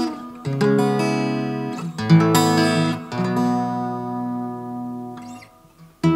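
Acoustic guitar strummed through a ToneWood Amp set to room reverb: three chords about a second apart, each left to ring with an added reverb tail, the last fading out near the end.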